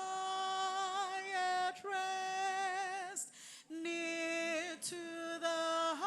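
A woman's voice singing a slow hymn unaccompanied, holding long notes with vibrato and pausing briefly for breath between phrases.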